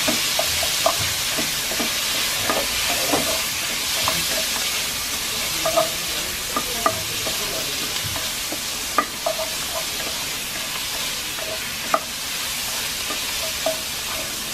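Diced tomatoes and onions sizzling in hot oil in a Lodge cast iron Dutch oven, stirred with a wooden spatula that scrapes and knocks against the pot now and then, sharpest about nine and twelve seconds in.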